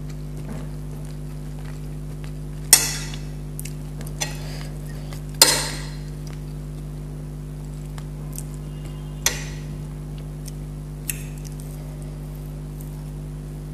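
A metal spoon clinking and scraping against plates in a few sharp strikes, the loudest about three and five and a half seconds in, over a steady low hum.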